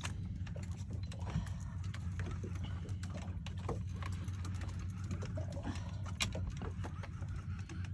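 Steady low hum of a fishing boat's engine, with scattered light clicks and taps.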